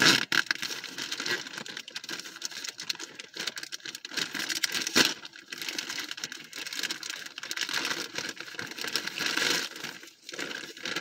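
Plastic bag crinkling and rustling as it is cut and pulled open with a small unboxing knife, with many small irregular crackles and a sharper snap about five seconds in.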